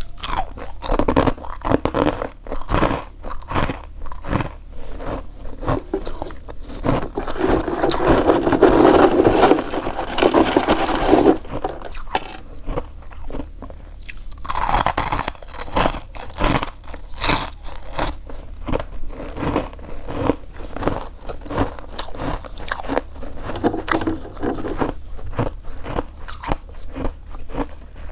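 Close-miked biting and crunchy chewing of freezer frost, a run of sharp crunches with a denser, louder stretch of continuous chewing about a third of the way in.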